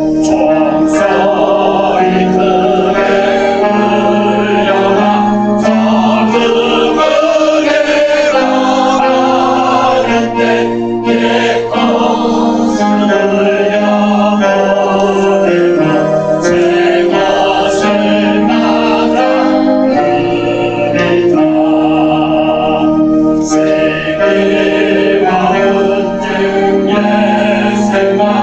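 A choir singing a slow hymn in sustained chords that change every second or two, with held low notes underneath.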